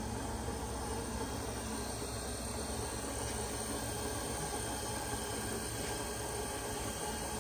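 A steady machine hum with a hiss, even and unbroken, with no distinct clicks or knocks.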